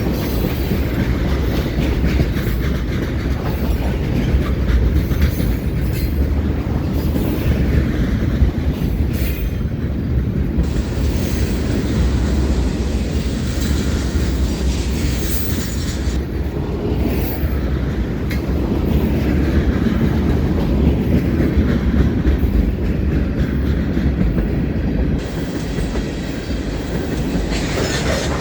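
Cars of a long mixed freight train rolling past: a steady heavy rumble with scattered sharp clicks and clacks from the wheels on the rails.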